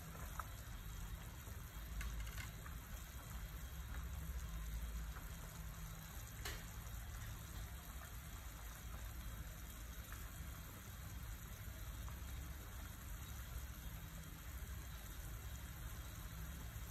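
Pot of soup boiling steadily on the stove, a continuous bubbling.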